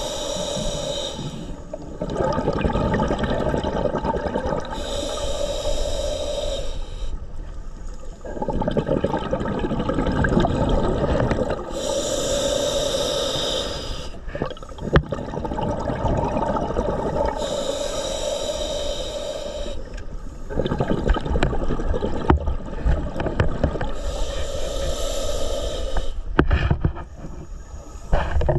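Scuba diver breathing through a regulator underwater: a hissing inhale about every six seconds, five in all, each followed by a long low burble of exhaled bubbles. A single sharp click about halfway through.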